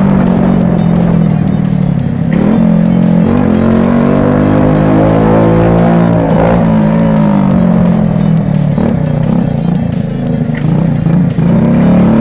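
Small 50cc moped engine with a straight-through exhaust, revving up and down while riding.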